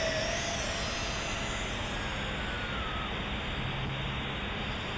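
Tarantula X6 quadcopter's motors and propellers whirring in flight: a steady rushing noise with a faint whine that slides down in pitch over the first few seconds.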